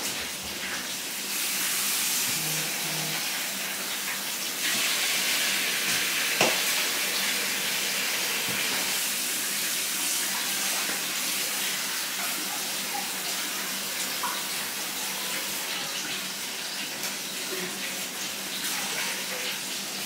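Water running from a kitchen tap, a steady rushing hiss, to add water for parboiling rice. There is one sharp click about six seconds in.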